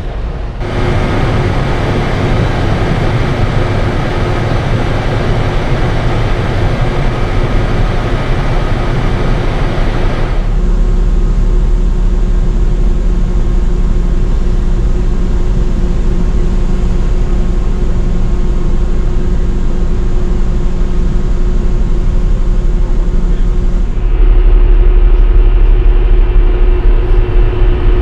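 Steady machinery noise on a ferry's open deck: the ship's engines and ventilation running with a constant hum and a low rumble. The sound shifts suddenly about ten seconds in, to a deeper rumble, and grows louder near the end.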